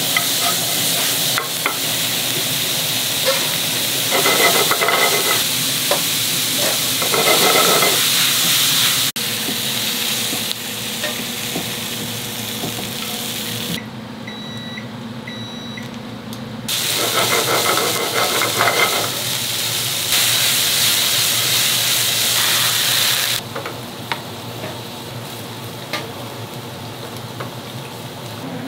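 Food frying and sizzling in hot pans, with stirring and light clinks of metal utensils. The sizzle gets abruptly louder and quieter several times, with quieter stretches of hiss in between.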